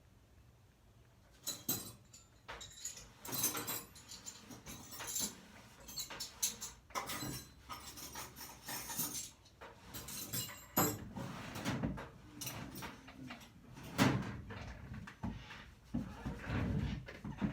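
Metal tools clinking and rattling in a series of irregular clatters as someone rummages through a toolbox for a wrench.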